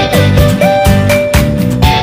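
Background music with a steady beat and a melody that slides between notes.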